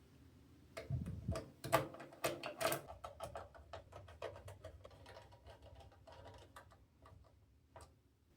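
Irregular run of small clicks and taps from PC hardware being handled and fitted, densest in the first few seconds and thinning out near the end.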